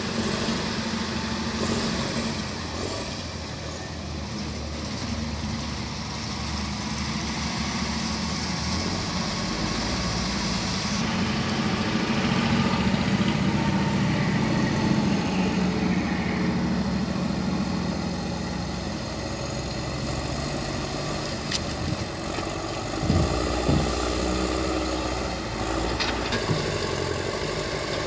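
Caterpillar 950 wheel loader's diesel engine running steadily while it handles logs with its grapple, with a couple of sharp knocks a few seconds before the end.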